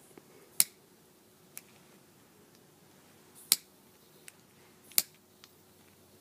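Blue plastic lighter being clicked at the end of a piece of quick-match fuse: three sharp clicks about a second and a half apart, with a few fainter ticks between, while the fuse has not yet caught.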